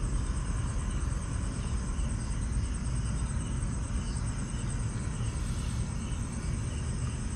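Crickets chirping steadily at night: a continuous high trill with slower repeating chirps lower in pitch, over a low rumble.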